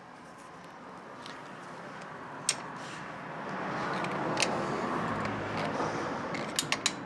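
A passing vehicle swelling up and easing off, with a few sharp metallic clicks from a spanner working on a bike pedal, several close together near the end.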